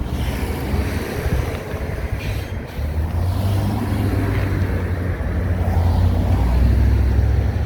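A motor vehicle's engine running close by, a low rumble that grows louder about three seconds in and again near the end, with wind noise on the microphone.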